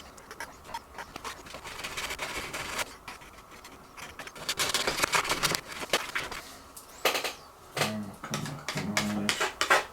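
A pry tool scraping and prying at the glued-down battery inside a 15-inch MacBook Pro's case, working the old adhesive loose. It comes in irregular scratchy strokes with small clicks and taps.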